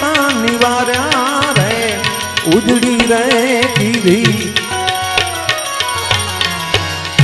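Live Indian devotional folk music: a man's voice singing ornamented, wavering lines over a harmonium, with small hand cymbals (manjira) and hand drums keeping a quick beat. In the second half the voice gives way to more steadily held harmonium notes.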